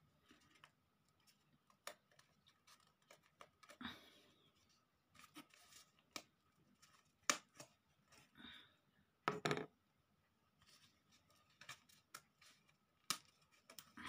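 Pre-cut pieces of a thin wooden craft board being pressed and snapped out of their sheet by hand: quiet scattered clicks, snaps and rubbing of wood on wood, with a few sharper snaps spread through.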